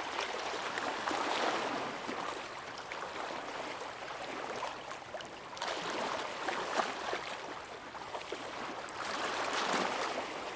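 Shallow sea water at low tide lapping and splashing, with small waves washing in as swells about a second, six seconds and nine seconds in, and little splashes between them.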